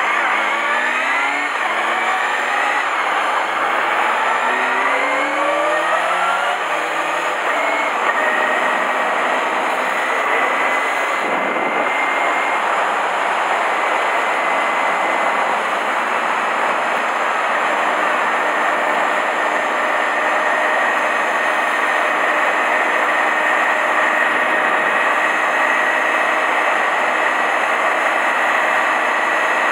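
Honda Hornet 250 motorcycle engine accelerating through the gears, its pitch climbing and dropping back several times over the first six seconds. It then runs at a steady cruise under heavy wind rush on the onboard microphone.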